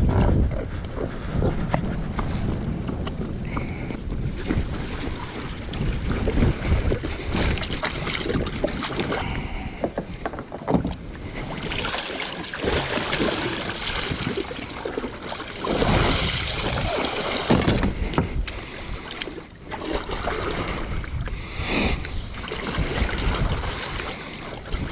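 Wind buffeting the microphone over water noise from a small skiff under way, rising and falling in gusts.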